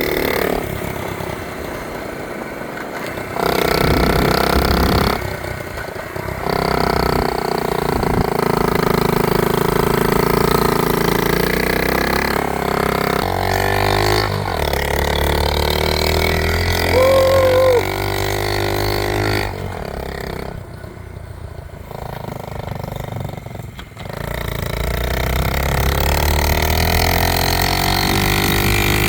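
1970 Honda Z50 minibike's small single-cylinder four-stroke engine running while it is ridden, its carburetor freshly tuned. The engine revs up and eases off again and again, dropping to a quieter run for a few seconds about two-thirds of the way through.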